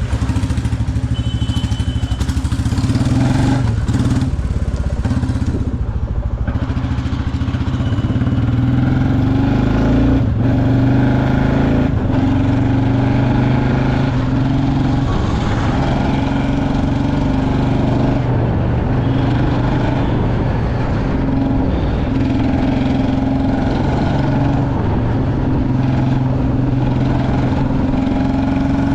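Motorcycle engine running steadily while being ridden, its note rising and falling a little with the throttle.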